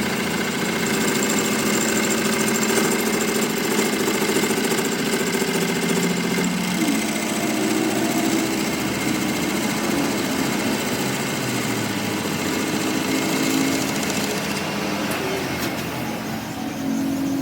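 A workshop machine running steadily, its motor hum shifting pitch a few times, over a dense mechanical clatter.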